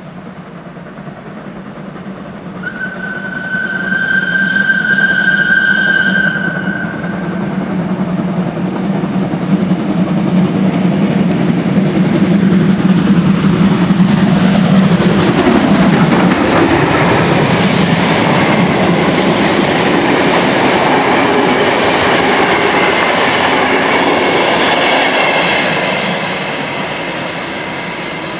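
Hr1 'Ukko-Pekka' steam locomotive and its coaches approaching and passing. One long steady whistle blast sounds a few seconds in. A low rumble then builds to a peak as the engine goes by about halfway through, followed by the coaches' wheels clattering over the rails with a faint high squeal, easing off near the end.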